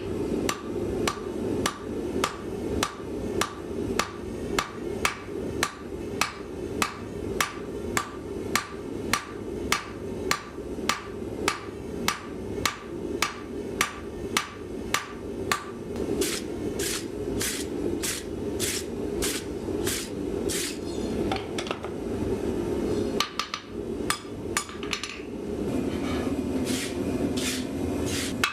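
Blacksmith's hand hammer striking hot steel on an anvil, about two blows a second, each with a short ring. The blows stop a little past two-thirds of the way through, followed by a few lighter taps. A steady low rushing runs underneath.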